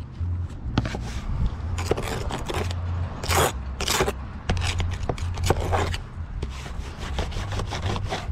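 Irregular scraping strokes on the roof around a plastic roof vent, a longer, louder stroke about three seconds in.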